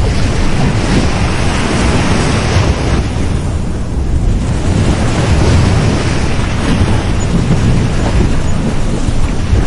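Ocean waves breaking and washing on a beach, a steady surf with a low rumble, easing briefly about four seconds in before swelling again; wind buffets the microphone.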